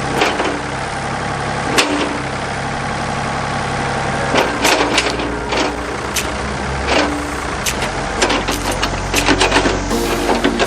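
Backhoe engine running steadily, its note shifting about four seconds in, with many sharp clanks and knocks over it, more of them in the second half.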